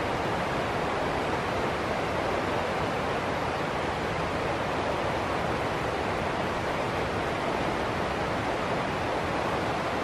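Small rocky stream rushing over a low cascade: a steady, even rush of white water.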